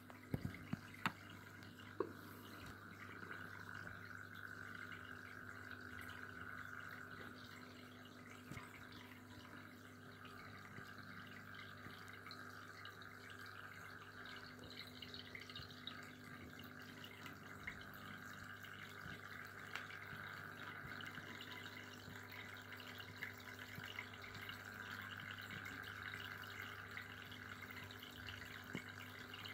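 Aquarium water trickling and dripping over a steady low hum, with a few sharp clicks in the first two seconds.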